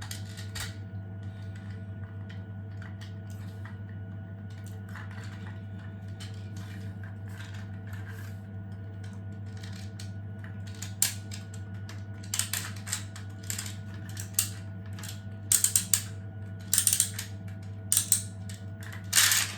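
Plastic clicking and ratcheting of a 3D-printed wind-up toy's spring mechanism and gear train as it is wound and its gears turn. The clicks are light and scattered at first, then come in louder clusters over the second half, over a steady low hum.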